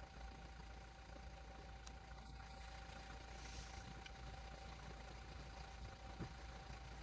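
Faint, steady low hum of a running vehicle engine, with a thin steady whine above it.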